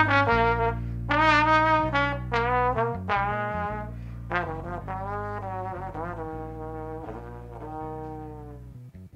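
Trombone playing a solo phrase of held notes, some wavering and some bending in pitch, over a steady low backing tone. The playing grows steadily quieter and fades out near the end.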